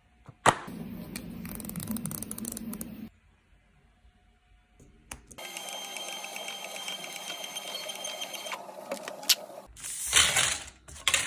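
A desktop thermal label printer runs for about three seconds in the middle, its feed motor whirring steadily as it prints and feeds out a strip of flip-book frames. Earlier there is a stretch of steady running sound and then a short pause. Near the end come a brief loud rustle of stiff paper cards being handled and a click.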